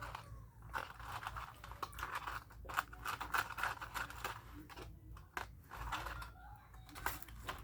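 Close-miked eating of fast food: chewing and crunching, with many short, sharp clicks.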